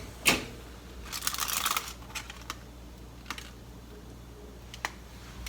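Light clicks and taps of kitchen things being handled, with a quick rattling run of clicks about a second in and a few single ticks after.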